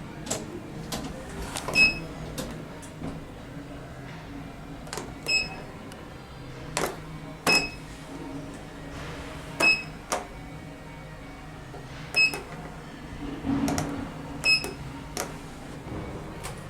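Short electronic beeps, each starting with a sharp click, repeating irregularly about every two to three seconds, like checkout barcode-scanner beeps, over a steady low hum.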